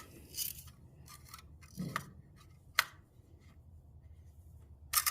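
Faint scrapes and clicks of an engine oil dipstick being slid down into its tube, with one sharp click nearly three seconds in and a louder scrape near the end.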